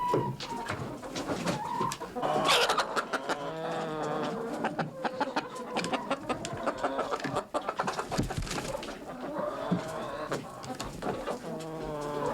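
Chickens clucking, with repeated short calls and a few longer ones, over scratching and rustling as the birds move about.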